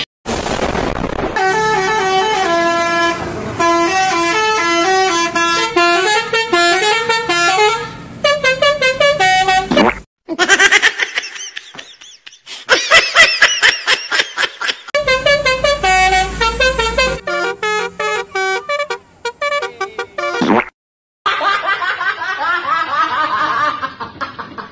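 Basuri 'telolet' multi-tone bus horn playing short stepped melodies and quick runs of repeated toots, in several separate bursts that cut off abruptly.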